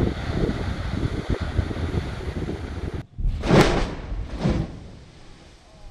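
Low rumble from the underwater detonation of a 150 kg WWII sea mine, heard from shore with wind buffeting the microphone. After an abrupt cut, two short loud bursts of noise follow about a second apart.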